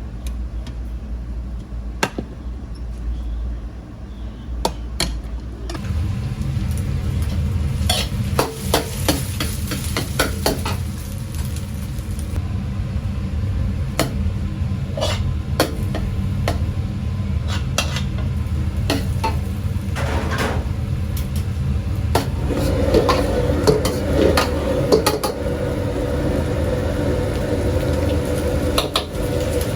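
Fried rice with eggs and shrimp being stir-fried: a metal spatula knocking and scraping against the hot pan many times over a sizzle, with a steady low rumble that gets louder about six seconds in.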